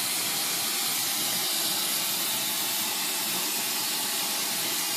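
Oxyacetylene torch flame burning with a steady, even hiss while it heats the edge of a large Damascus steel knife blade for differential edge hardening.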